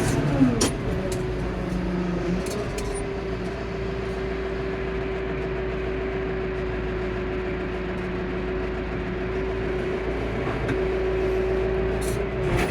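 Tractor engine running steadily under load, its revs dropping about half a second in and then holding, with a few light clicks and knocks.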